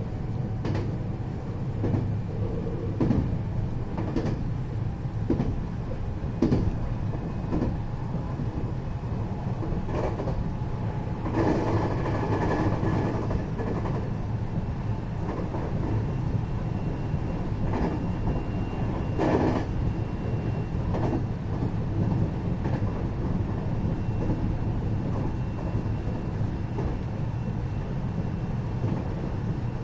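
521-series electric train running at speed, heard from inside its motor car: a steady low rumble with the wheels clicking over rail joints about once a second. A louder rushing stretch comes about twelve seconds in, and a faint steady high whine joins about halfway through.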